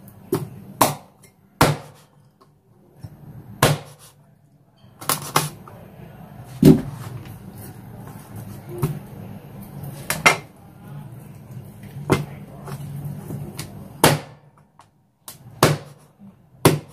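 Kitchen knife chopping through a raw whole chicken and striking a plastic cutting board: about a dozen sharp knocks at uneven intervals.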